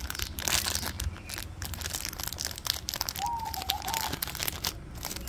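Thin plastic packet of a new oil seal crinkling and being torn open by hand, a run of irregular crackles that is densest about a second in. A bird coos once a little past the middle.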